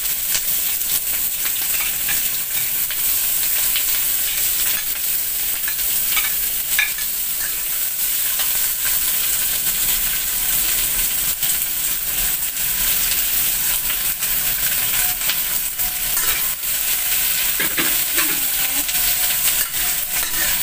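Onion pieces sizzling in hot oil in a steel wok, added to ginger already frying, with a steady hiss. A metal spatula stirs them, making scattered clicks and scrapes against the wok.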